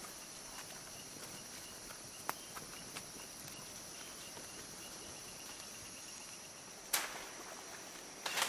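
Rainforest insects: a steady high-pitched drone with a faint, rapid, even chirping beneath it. A few sharp snaps cut through, the loudest about seven seconds in and another short cluster near the end.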